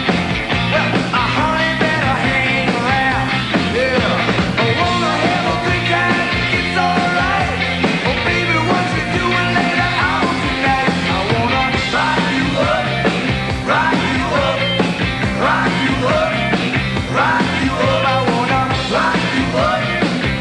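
Rock band playing loudly: drums, electric guitars and bass, with a male voice singing.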